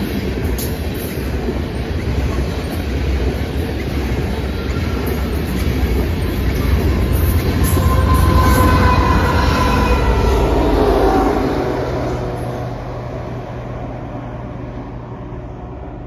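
Loaded coal gondola cars rolling past on the rails: a heavy steady rumble and clatter of wheels. High squealing tones slide down in pitch about halfway through, where the sound is loudest, and then the rumble fades as the end of the train moves away.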